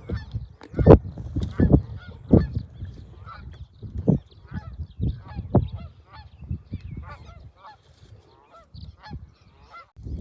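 Birds on the lake calling over and over in short, repeated notes, with irregular low thuds underneath.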